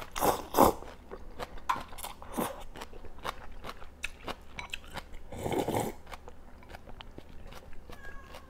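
Close-miked eating of rice vermicelli and duck hotpot: a couple of strong slurps of noodles from chopsticks in the first second, then steady wet chewing with mouth clicks, and a longer slurp of broth from a bowl about five and a half seconds in.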